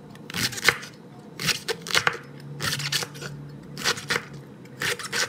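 A large kitchen knife slicing through cabbage leaves and striking a wooden cutting board, in an uneven run of crisp cuts about two a second.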